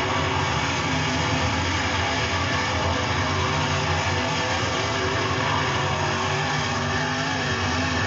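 A field of dirt super late model race cars racing past, their V8 engines running together as one steady, loud, unbroken sound.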